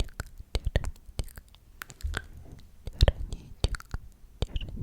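Close-miked whispering broken up by many sharp, irregular wet mouth clicks and smacks.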